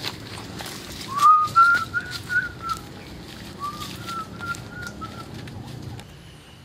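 Two short phrases of clear whistled notes, a rising note then a run of short notes at about the same pitch, between about one and five seconds in, over faint rustling and footsteps in leaf litter.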